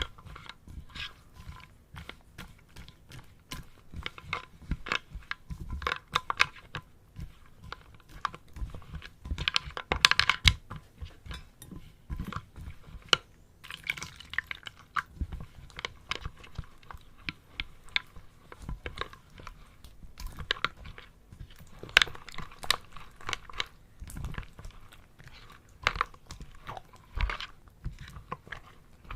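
Close-miked crisp crunching and crackling: many sharp, irregular clicks and pops in quick succession, with louder clusters about ten seconds in and again around twenty-two seconds.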